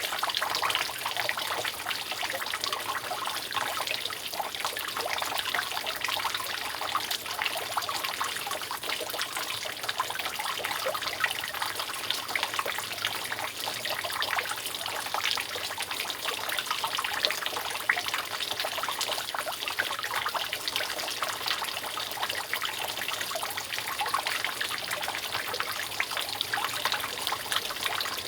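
Rainwater dripping continuously from a roof, a dense, steady patter of many small drops and trickles splashing.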